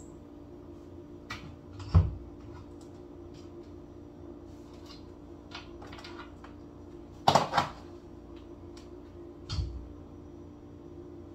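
Kitchen wall cabinet door and spice jars being handled: a thud about two seconds in, a sharp double clack of the door or jars about seven seconds in, a softer thud near the end, and a few light ticks between.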